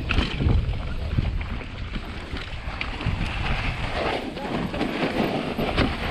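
Wind buffeting the microphone of a mountain bike descending fast over loose volcanic dirt, with the tyres rumbling on the ground and scattered knocks and rattles from the bike.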